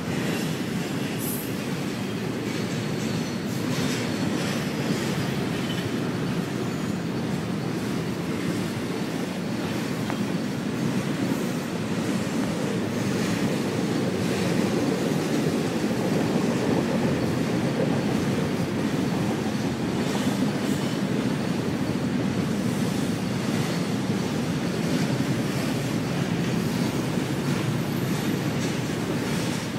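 Double-stack intermodal freight train rolling past: a steady rumble of steel wheels on rail, with clacking over rail joints and a few sharp clanks from the passing well cars.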